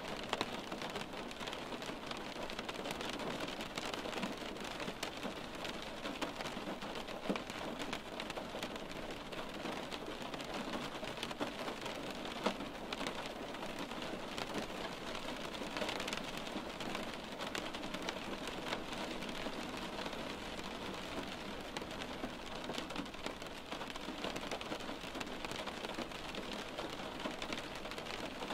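Steady rain falling on window glass, with a few louder drop taps now and then.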